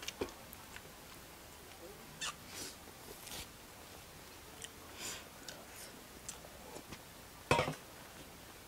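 Eating sounds: quiet chewing and mouth noises, with fingers working food on steel plates, making scattered short clicks and smacks. The loudest comes about seven and a half seconds in.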